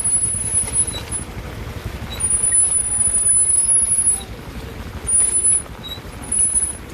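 Small motorcycle engines running at low speed with a pulsing low rumble, and a thin high-pitched squeal that comes and goes three times, longest in the middle.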